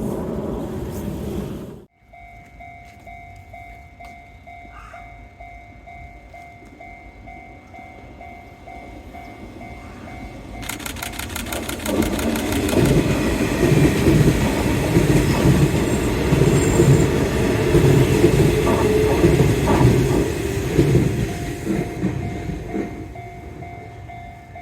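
Level-crossing warning bell ringing in a steady repeating pattern, then a Nishitetsu 5000 series electric train passes over the crossing about halfway through, its rumble and wheel clatter rising to the loudest point and fading again while the bell keeps ringing. The sound cuts off abruptly about two seconds in before the bell begins.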